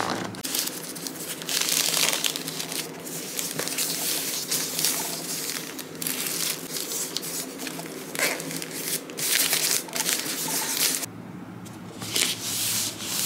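Plastic courier mailer bags and a cardboard mailer box being handled on a table: crinkling and rustling plastic with rubbing and sliding, with a short lull about three quarters of the way through.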